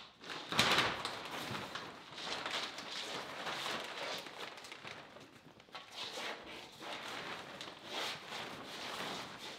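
Clear plastic sheeting crinkling and rustling irregularly as it is pulled up and bunched by hand, loudest about half a second in, with footsteps on a concrete floor.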